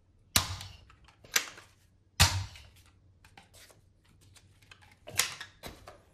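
Sharp plastic clacks from a small toy foam-dart blaster being handled: four main clacks with faint ticks between, the loudest about two seconds in.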